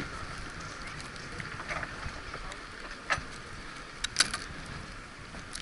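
Steady hiss of wind and sea on an ocean pier, with a few sharp clicks about three seconds in and a short cluster of them about four seconds in.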